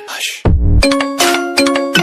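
Electronic music: a swoosh at the start, then from about half a second in a beat with deep bass hits and ringing bell-like notes.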